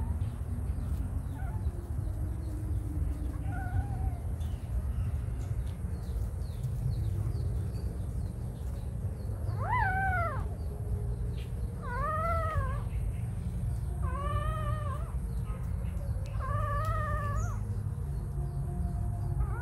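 A young animal's drawn-out whimpering cries, each rising and falling in pitch: four loud ones about two seconds apart from about ten seconds in, with a couple of faint ones in the first few seconds. A steady low rumble runs underneath.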